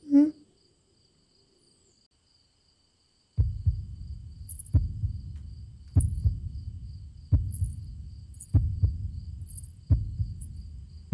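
A brief sob right at the start, then silence; from about three seconds in, a slow pulse of low heartbeat-like thuds, roughly one every 1.3 seconds, over a low rumble: a tension sound effect in a film score.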